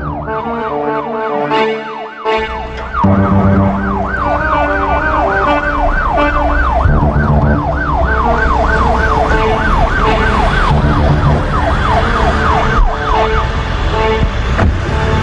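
Emergency-vehicle siren in a fast rising-and-falling yelp, about two to three sweeps a second, over a low music bed; the siren stops near the end.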